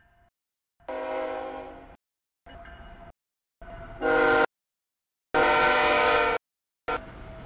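CSX freight locomotive's horn sounding a series of blasts for a road grade crossing, with short gaps between them. The loudest blasts come about four and five and a half seconds in.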